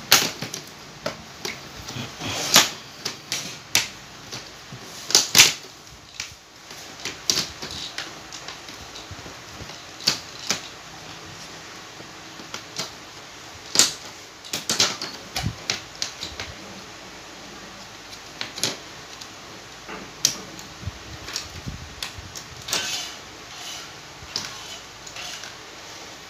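Clicks, snaps and knocks from a Sharp LED TV's panel frame and bezel being pried apart by hand, coming at irregular intervals with a few louder snaps.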